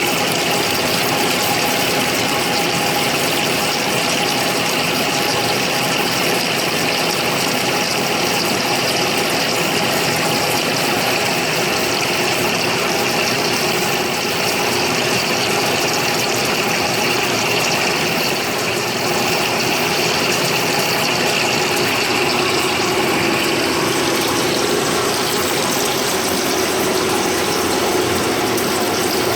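Large lathe running through a trepanning cut: a steady machine sound with several held tones, whose tone shifts to a lower note near the end.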